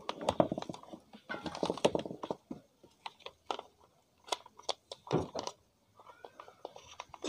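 Plastic appliance parts and a wound power cord being handled and packed back: a run of small plastic clicks and rustles, a louder knock about five seconds in, and a brief squeak of plastic rubbing near the end.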